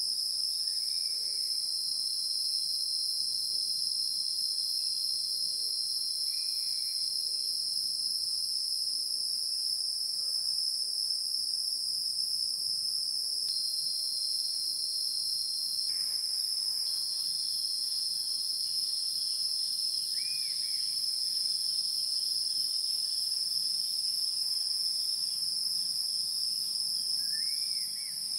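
Chorus of insects: a shrill, steady high buzz in two pitches that goes on without a break.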